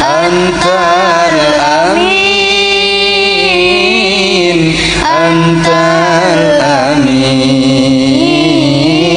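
A boy singing an Arabic sholawat (Islamic devotional song) into a microphone through the stage PA, in long held notes with melismatic runs and vibrato.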